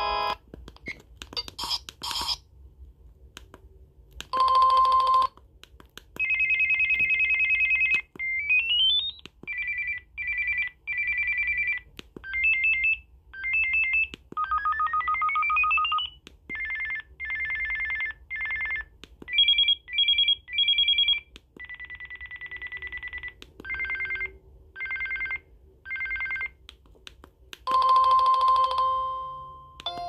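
A Samsung SPH-A860 flip phone playing its built-in single-tone ringers from its speaker, one after another as the list is scrolled. The tones are electronic beeps and trills of changing pitch, two of them sweeping upward, with short breaks between tones and faint clicks.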